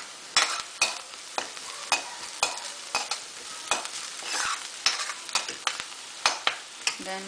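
A metal spoon stirring chopped onion and garlic frying in oil in a wok, clicking against the pan about twice a second over a steady sizzle.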